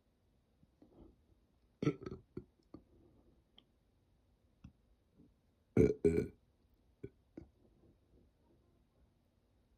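A person burping twice: a short, choppy burp about two seconds in and a louder one about six seconds in. Faint clicks come in between.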